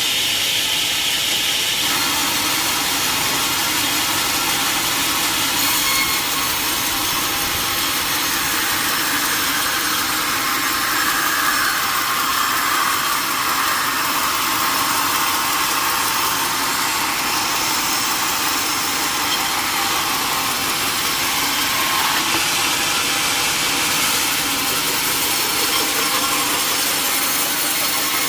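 Sawmill saw running steadily and cutting through teak, with a pitch that wavers up and down in the middle.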